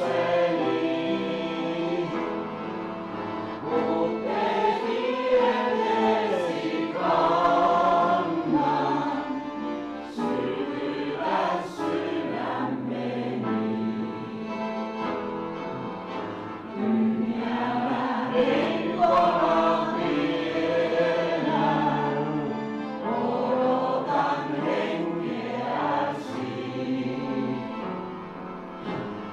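Voices singing a Christian song, accompanied by an upright piano and a piano accordion.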